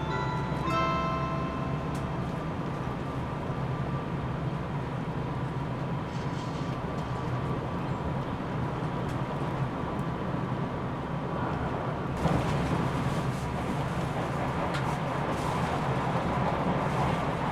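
Cabin running noise of a JR Shikoku 8000 series electric train under way: a steady low hum with rolling and track noise. The last notes of the JR Shikoku announcement chime ring out in the first second, and about twelve seconds in the running noise grows louder and brighter.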